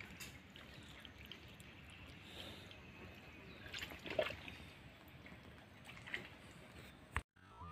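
Faint trickling and dripping of water on exposed mangrove mud at low tide, with a brief louder noise about four seconds in and a sharp click near the end.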